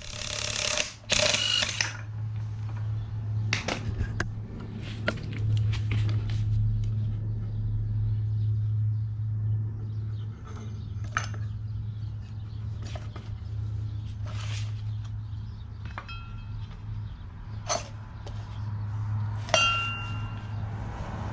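Mechanic's tools and metal parts at work while the Mini Cooper S's rear shock mounting bolt is undone and the zip-tied spring and shock are freed. Two short loud bursts of noise come in the first two seconds, then scattered metallic clicks and knocks over a steady low hum.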